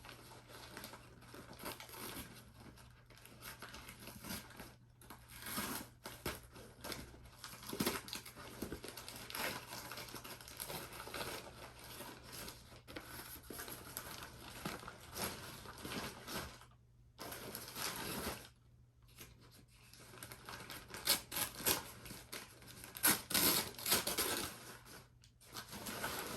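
A plant's shipping packet being torn open and unwrapped by hand: irregular tearing, crinkling and rustling of the wrapping, with short pauses and the loudest bursts near the end.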